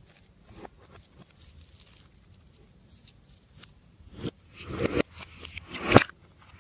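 Glossy slime being worked by hand: a few faint sticky clicks, then from about four seconds in a run of squishing, crackling squelches and pops, the loudest near the end.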